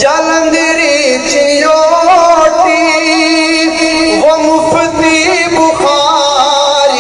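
A man singing an Urdu devotional kalaam in long, drawn-out phrases, the pitch wavering and sliding through ornamented held notes.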